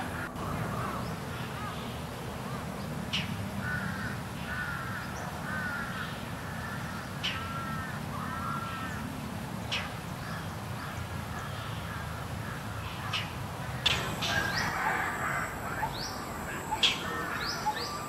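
Indochinese roller (Coracias affinis) giving its harsh, scolding, crow-like call, a series of rasping arched notes in bursts, with short sharp high notes scattered among them over a steady low background hum.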